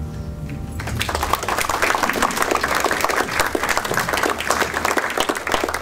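The jazz quartet's final chord (piano, cello, guitar and double bass) dies away. About a second in, the audience bursts into steady applause.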